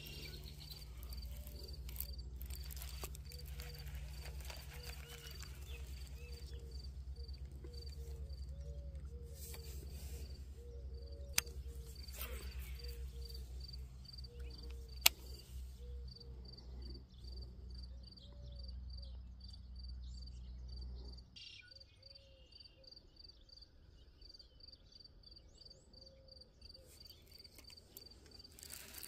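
A cricket chirping in an even, steady rhythm, over a low steady rumble that stops about two-thirds of the way through, with two brief sharp clicks.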